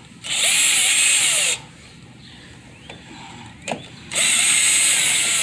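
Cordless power drill/driver running in two bursts of about a second and a half each, spinning screws out of the old door handle.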